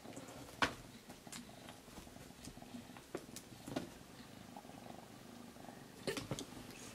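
Calico kitten purring steadily, with a few light clicks and knocks: the sharpest comes under a second in and a short cluster comes near the end.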